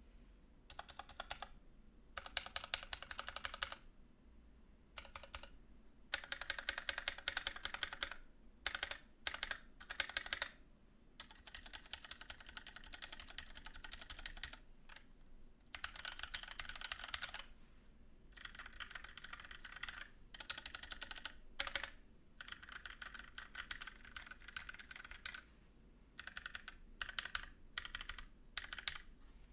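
Typing on a Keychron K6 mechanical keyboard with Gateron brown tactile switches, keys clacking in quick runs broken by short pauses.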